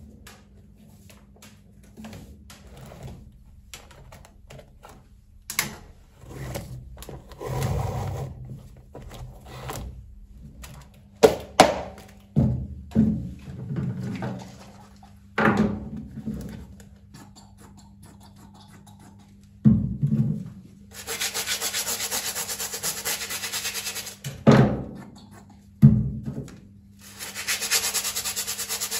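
Shoe-cleaning handling sounds: scattered knocks and thunks of bottles and shoes set down on a stainless-steel counter, then a brush scrubbing black suede sneakers in two stretches of a few seconds each, the second near the end.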